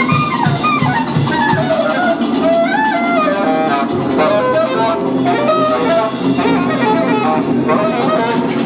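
Live jazz ensemble playing: a saxophone improvising fast, winding runs with bent notes over hand-drum percussion.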